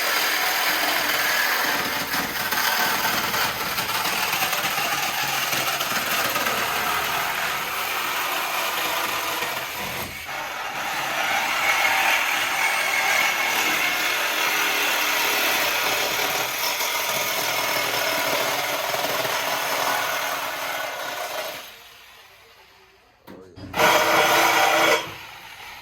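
Power saw cutting through the car's exhaust piping to remove the mufflers, running continuously for about twenty seconds before stopping, then a short burst of cutting again near the end.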